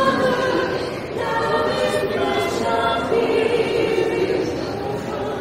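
Vocal group singing in harmony, several voices holding sustained chords that change about a second in and again about three seconds in.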